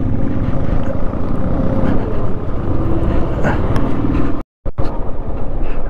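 Motorcycle riding along, its engine and road noise running steadily. The sound cuts out completely for a moment a little past the middle.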